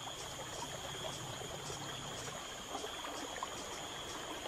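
Tropical forest ambience: a steady high-pitched insect drone over the rushing of a swollen, flooded river.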